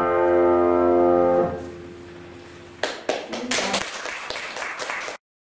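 A keyboard holds the final chord of a piece, released about one and a half seconds in and dying away. About a second later a small group applauds for about two seconds, and the sound cuts off abruptly.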